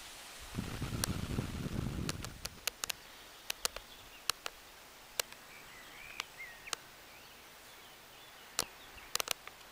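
A gust of wind buffeting the microphone for a second and a half, then a quieter outdoor background with a dozen or so scattered sharp clicks and a few faint bird chirps.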